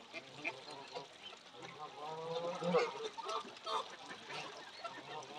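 A feeding flock of Canada geese and ducks calling: scattered short honks and quacks, with one longer, drawn-out call about two seconds in.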